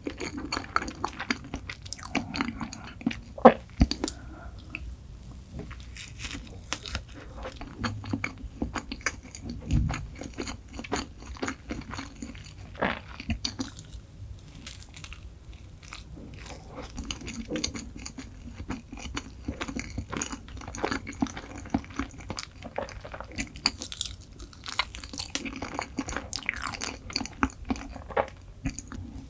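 Close-miked eating: a person biting and chewing chocolate desserts, with wet mouth sounds and crisp crunches, one sharp crack about three and a half seconds in.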